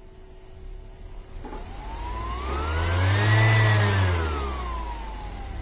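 A motor whine rising in pitch and loudness from about a second and a half in, peaking about halfway, then falling away again.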